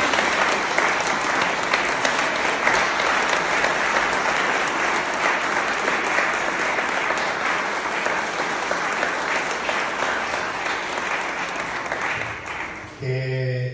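Audience applauding steadily for about thirteen seconds, dying away near the end.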